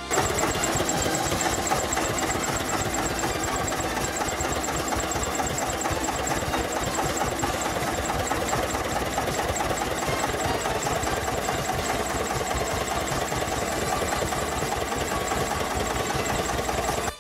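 Diesel engine of a Jenbacher JW 15 narrow-gauge field-railway locomotive idling steadily with a rapid, even knocking beat.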